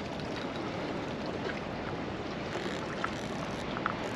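Steady wash of sea water against the rocks, with wind on the microphone and a few faint clicks.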